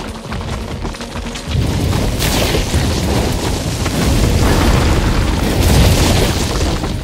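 Dramatized battle sound effects: a heavy booming rumble rises about a second and a half in and keeps going, with music underneath.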